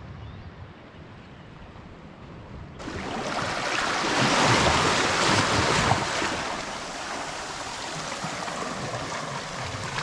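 Seawater surging and foaming over a weed-covered rock ledge at the water's edge, starting suddenly about three seconds in after a faint steady hiss. It is loudest a second or two later, then settles into a steadier wash.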